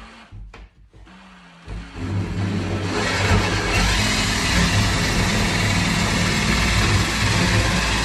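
Cordless drill boring into the wooden edge of a door, starting in earnest about two seconds in and then running steadily under load.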